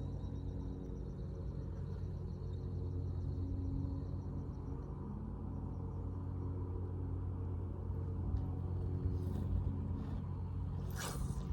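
Lawnmower engine running steadily as a low, even hum, loud enough to go crazy. A brief swish comes near the end.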